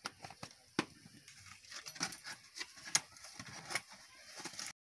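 A run of sharp clicks and light knocks, about four of them prominent, from a plastic spice container being handled and firewood being pushed into the mouth of a clay stove.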